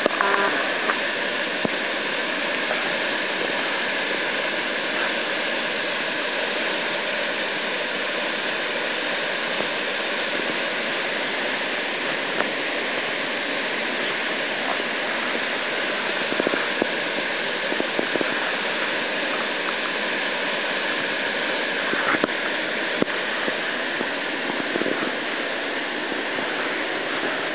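River in spring flood rushing through whitewater rapids: a steady rush of water.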